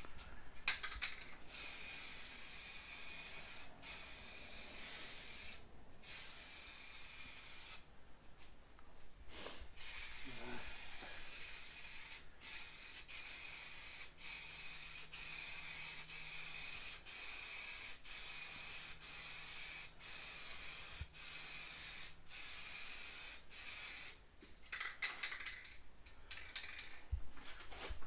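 Aerosol spray paint can hissing in long passes, with brief gaps each time the nozzle is let go, as a coat of paint goes onto an engine oil pan. The steady spraying gives way to a few short spurts near the end.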